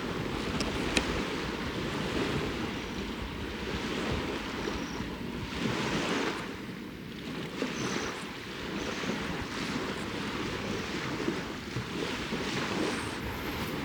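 Small waves washing onto the lakeshore, swelling and ebbing every few seconds, with wind on the microphone.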